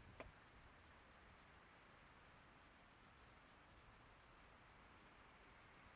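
Faint, steady high-pitched drone of insects, with a single faint tick just after the start.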